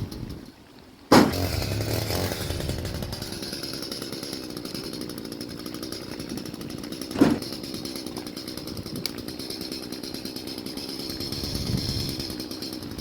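Gasoline chainsaw running steady and fast. It starts abruptly about a second in, and a single sharp knock comes about halfway through.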